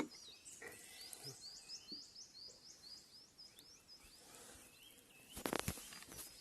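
A small songbird singing a quick run of repeated high chirps, with lower calls joining partway through. Near the end comes a brief cluster of sharp knocks or crackles.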